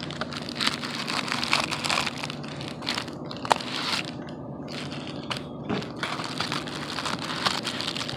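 Plastic Amazon mailer bag crinkling and crackling as it is handled and pulled at to get it open, with irregular sharp crackles and one louder snap about three and a half seconds in.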